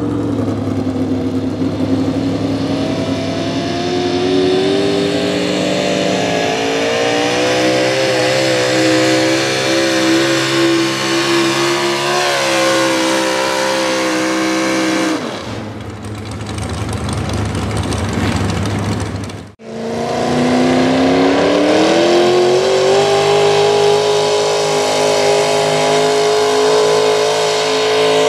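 Modified small-block V8 pulling trucks running at full throttle while dragging a pulling sled. The first engine's pitch climbs slowly and then sinks and drops off about fifteen seconds in. After a sudden cut, a second truck's engine winds up fast and holds high revs.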